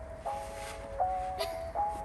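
Background music: a run of held chords, each struck with a sharp attack, changing about every half to three quarters of a second.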